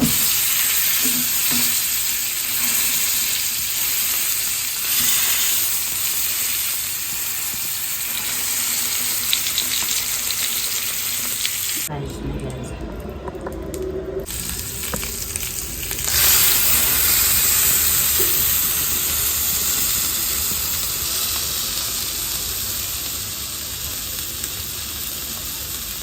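Lamb shank pieces sizzling as they brown in hot oil in a pot, a steady frying hiss. About twelve seconds in, the sizzle drops away for roughly two seconds.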